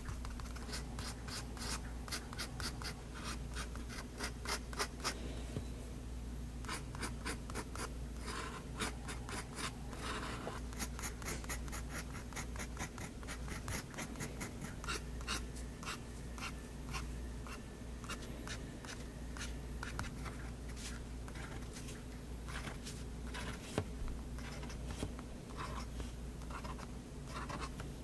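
Extra-fine nib of a Faber-Castell Hexo fountain pen scratching on paper in quick, short strokes, in runs of several a second with brief pauses, as it inks fine detail lines and dots.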